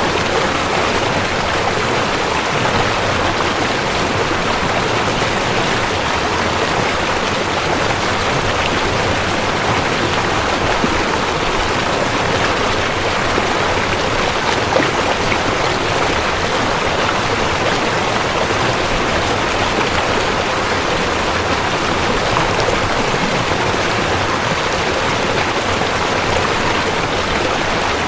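A fast-flowing river rushing, a dense, steady roar of water with no breaks.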